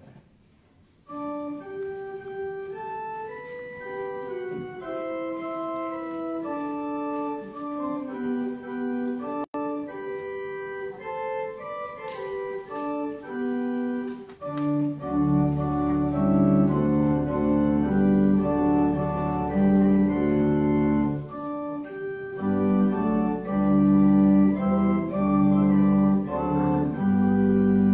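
Church pipe organ playing a hymn introduction. It enters about a second in with a lighter melody in the upper range. About halfway through, deep pedal bass and fuller chords come in, and it grows louder.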